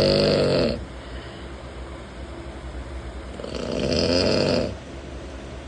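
A man snoring: two long, loud snores, the first fading out under a second in and the second building from about three and a half seconds and stopping abruptly.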